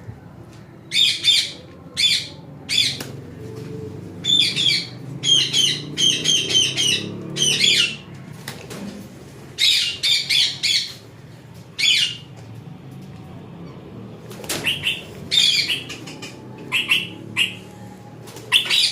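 Parrots squawking in short, harsh bursts again and again, with wing flaps: the alarm calls of a rosella and aviary parrots disturbed while the bird is being chased to be caught.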